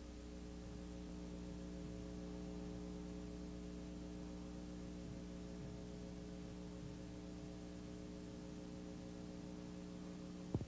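Steady droning hum of several held tones, with no change in pitch, cut off by a sharp click near the end.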